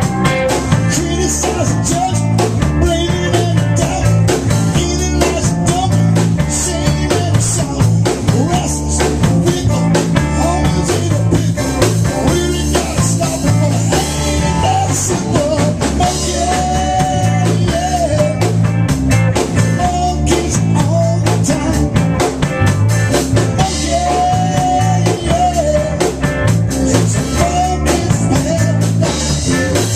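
Blues band playing live: guitar carrying a melodic line over a steady bass pattern and a drum kit, with no words sung.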